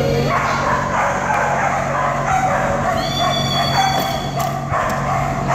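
Dogs barking and yipping, with a steady low hum underneath.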